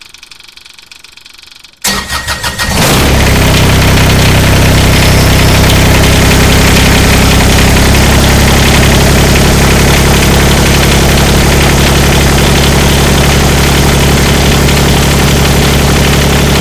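Engine starting: a brief burst of cranking about two seconds in, then the engine catches and runs steadily and loudly.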